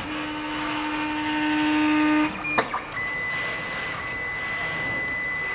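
Wanhao Duplicator 9 3D printer's stepper motors whining steadily as they drive the axes at the start of an auto bed leveling run. The whine stops after about two seconds and is followed by a sharp click, and a thin high steady whine carries on after it.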